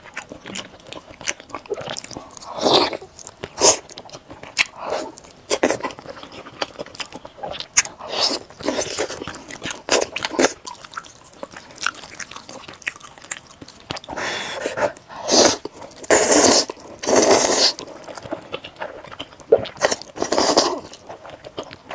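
Close-miked eating: wet, sticky chewing and biting on sauce-glazed grilled eel. A run of loud slurps of spicy fire noodles comes in the second half.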